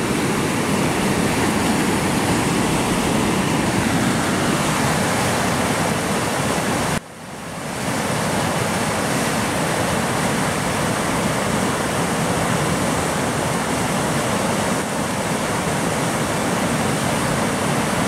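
A swollen river rushing through whitewater rapids over rocks, high with snowmelt, making a loud, steady noise of water. The sound drops away suddenly about seven seconds in and comes back within a second.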